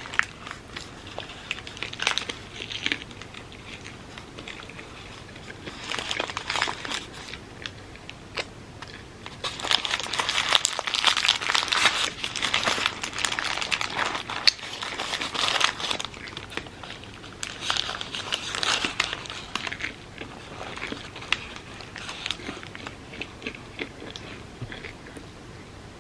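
Close-miked eating: bites and chewing with dense crackly clicks that come in bursts, the longest and loudest from about ten to sixteen seconds in.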